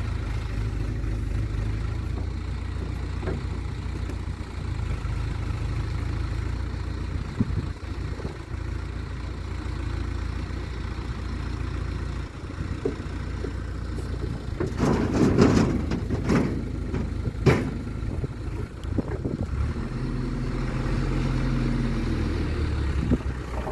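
Mecalac 12MX wheeled excavator's diesel engine running steadily under hydraulic load as the arm swings and digs. About fifteen seconds in comes a loud rush of noise as a bucketful of soil is tipped into the trailer, followed by a sharp knock.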